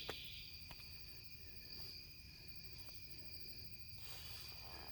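Steady chorus of crickets and other evening insects, trilling without a break, with a sharp click right at the start.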